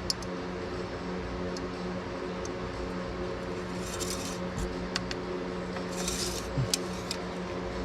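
An engine oil dipstick being handled in its tube: a few light metallic clicks and two short swishes as it is slid in and drawn out to read the oil level. A steady background hum runs underneath.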